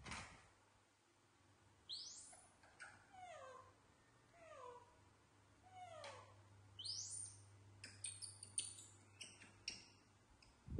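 Young macaques calling faintly: two high squeaks and three short falling coos. A run of short, faint clicks and rustles comes near the end.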